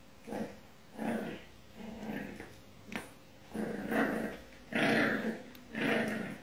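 French bulldog puppy growling in short bouts about once a second, the later ones louder and longer.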